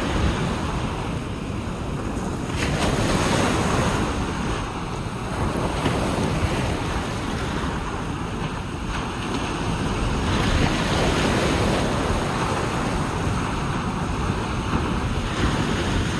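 Ocean surf washing onto a beach, the sound swelling and easing as waves come in, with wind buffeting the microphone as a low rumble.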